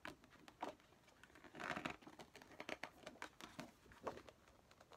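Faint rustling and crinkling of paper and plastic as an album and its inserts are handled, with small clicks and one louder rustle about two seconds in.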